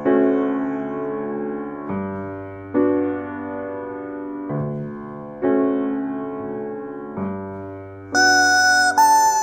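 Piano playing slow chords, each struck and left to ring. Near the end a squeezed rubber chicken joins in with a loud, high held squeal in two notes, the second higher, taking the melody over the piano.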